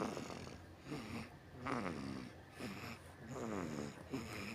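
A baby snoring: a quick run of short, pitched snores about one a second, each falling in pitch.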